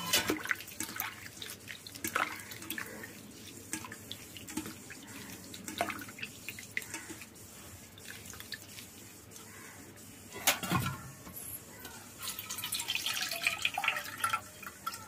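Hands swishing neem flowers in water in a stainless steel bowl, with small splashes and drips. A single knock comes about ten and a half seconds in, then water and flowers are poured through a wire-mesh strainer with a run of splashing near the end.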